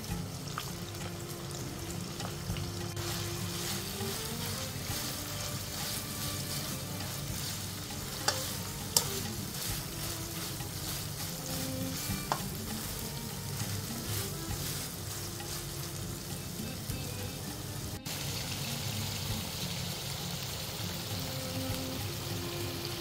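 Chunks of soy-sauce-marinated beef frying in hot oil in a wok, a steady sizzle, with a few sharp clicks around the middle.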